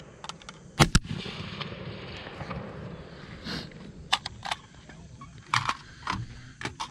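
Rifle shots on a highpower firing line during a rapid-fire string: two loud shots about a second in, a fraction of a second apart, then several fainter sharp cracks scattered through the last few seconds.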